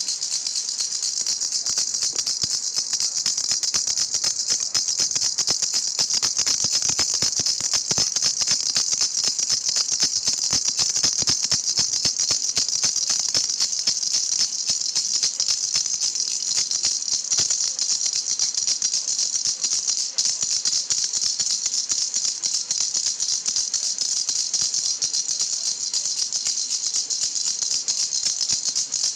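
Baby toy rattle shaken steadily without a pause, a dense, high-pitched rattle.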